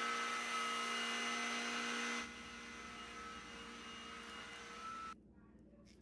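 Cordless stick vacuum motor running with a steady whine over a rush of air. About two seconds in it drops noticeably quieter, and near the end it cuts off suddenly.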